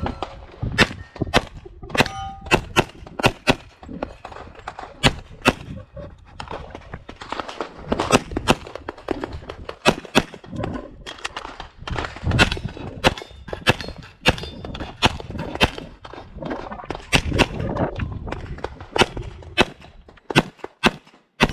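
Rapid pistol fire from an STI 2011 in .40 S&W during a timed IPSC stage: quick strings of shots with short pauses between them, and metallic clangs of hits on steel targets.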